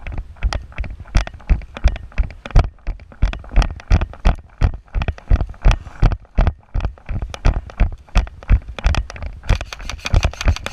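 Footsteps thudding close to the microphone in a steady stride of about three steps a second, with some scraping of gear.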